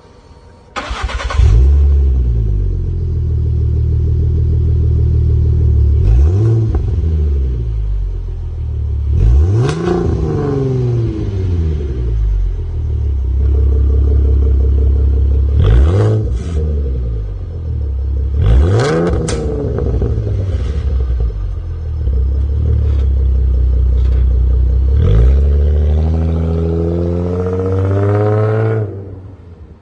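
Ford Mustang V6 with an aftermarket valved axle-back exhaust, starting up about a second in with a loud burst, then idling and revved in several quick blips, with a longer climbing rev near the end before the sound cuts off suddenly.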